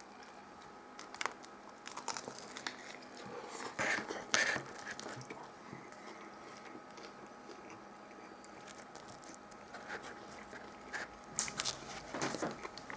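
Faint, scattered crunching and crinkling from a crusty steak grinder sub and its paper wrapper, in clusters about a second in, around four seconds in and near the end.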